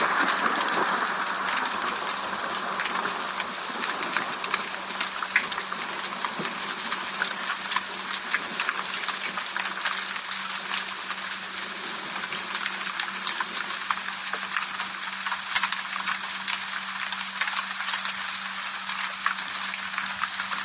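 Steady rain falling, heard as an even hiss thick with separate drop ticks and splashes. A louder rushing sound fades away in the first couple of seconds, and a faint low hum runs underneath.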